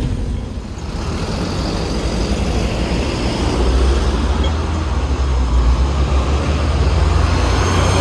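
Cummins L9E diesel engine of an Enviro500 double-decker bus running under load, heard from on board, through its ZF Ecolife automatic gearbox. The deep engine rumble builds from a few seconds in, over steady road noise.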